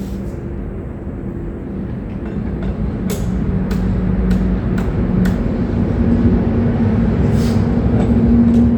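A low, steady engine hum that grows gradually louder and rises slightly in pitch, with a few light clicks over it.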